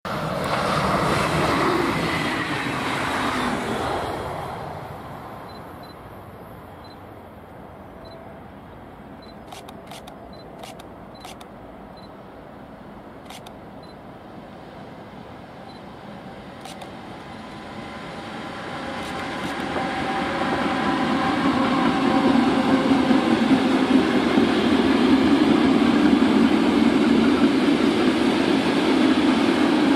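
A DB Regio Class 425 electric multiple unit running past, its sound falling in pitch and fading over the first few seconds. About eighteen seconds in, a DB Cargo freight train headed by a Class 185 electric locomotive comes up, growing louder into the steady rumble and ringing of its wagons' wheels passing close by.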